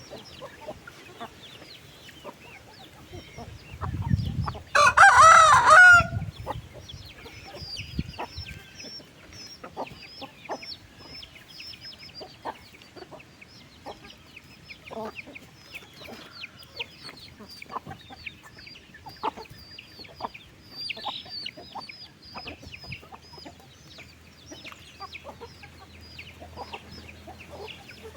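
A flock of chickens clucking and calling with many short high notes throughout, and one rooster crow about five seconds in, the loudest sound, just after a low rumble.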